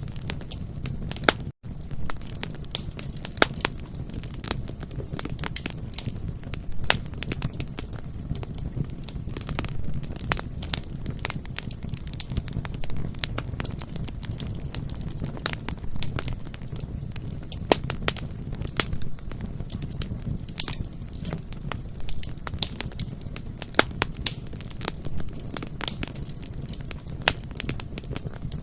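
Bonfire burning: irregular sharp crackles and pops of burning wood over a steady low rumble of the flames.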